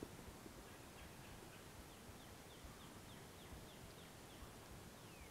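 Faint birdsong: a bird giving a run of short, high, falling notes, about three a second, over a low background hush.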